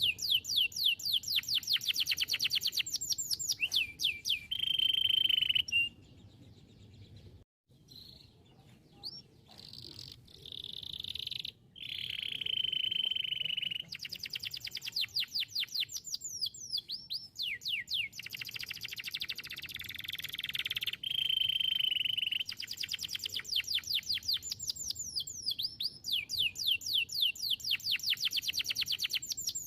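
Domestic canary singing: fast trills of rapidly repeated downward-sweeping notes alternating with steady held notes, with a short break about six seconds in before the song resumes.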